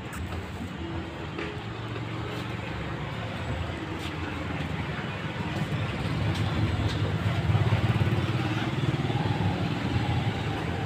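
Low rumbling noise that swells louder in the second half, with a few faint light clicks.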